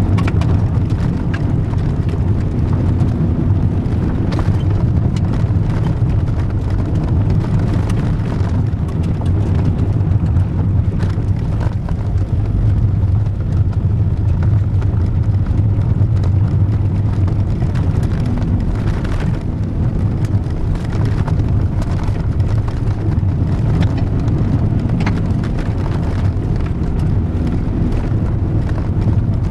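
Volkswagen 1.9 turbodiesel car heard from inside the cabin, driving steadily on a gravel road: a low engine drone under tyre and road noise, with frequent small clicks of gravel striking the car.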